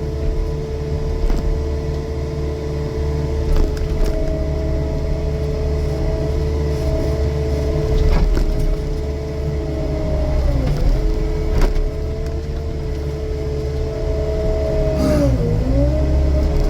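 Cat 299D3XE compact track loader's diesel engine running hard with its hydraulic mulching head spinning: a deep rumble under a steady whine. The whine sags briefly twice, about eleven and fifteen seconds in, as the head takes load. Occasional knocks come through as it cuts.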